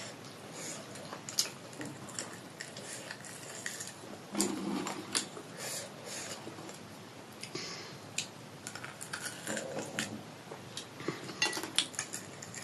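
Cutlery and dishes clinking in irregular short clicks while people eat, with softer eating sounds between them.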